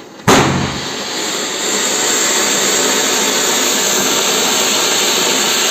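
Anar (cone-shaped ground fountain firework) spraying sparks with a loud, steady, rushing hiss. A sharp crack comes just after the start.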